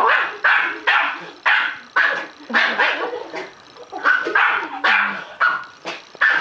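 Dog barking rapidly and repeatedly, about two barks a second with a brief lull midway: excited barking in rough play with a person leaning in at it.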